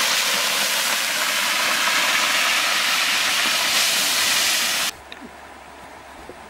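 Liquid poured into a very hot, oiled wok, hissing and sizzling loudly as it boils up while a wooden spoon stirs it. The hiss starts suddenly and cuts off about five seconds in.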